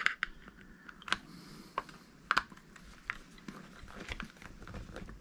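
Small screwdriver working the screws of a plastic screw terminal block as wires are pushed in and clamped: a run of light, irregular clicks and ticks of metal on plastic, about one every half second to a second.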